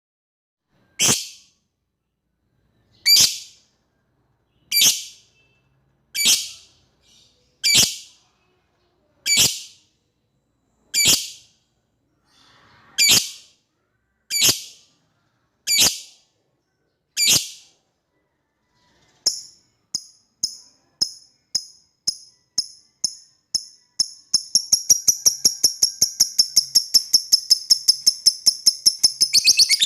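Lovebird giving a string of sharp, high single calls about every one and a half seconds. About two-thirds of the way through these turn into short chips that speed up and run into a rapid, continuous chattering trill: the long 'ngekek' cackle with which a fighter lovebird calls out a rival.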